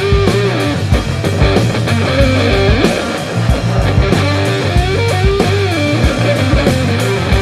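Rock music: a lead electric guitar with bending notes over bass and a steady drum beat.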